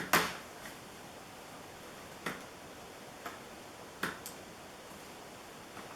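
Sharp plastic clicks from wire-harness connectors being unlatched and pulled off a TV circuit board. The loudest comes right at the start, followed by four fainter clicks spread through the next few seconds.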